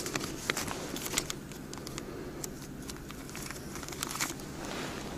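Paper banknotes being handled and counted, with scattered short crinkles and rustles.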